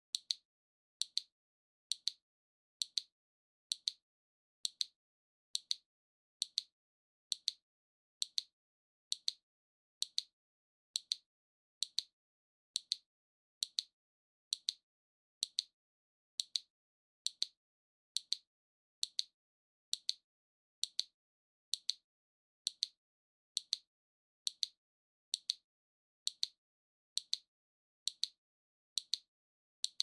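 Waving lucky cat (maneki-neko) figurine's swinging-arm mechanism ticking, a crisp high click about once a second, evenly spaced, with silence between the ticks.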